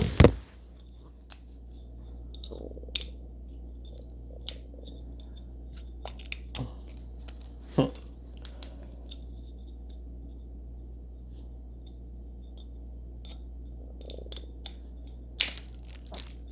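Snapple bottle being handled and its twist cap opened: scattered short clicks and light scrapes and crinkles, with a few louder clicks spread through, over a steady low hum.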